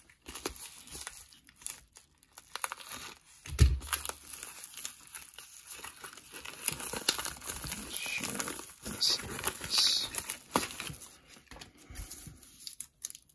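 Plastic bubble mailer crinkling and tearing as it is opened by hand and a paper card envelope is pulled out, in irregular rustles with scattered small clicks. One dull thump about three and a half seconds in.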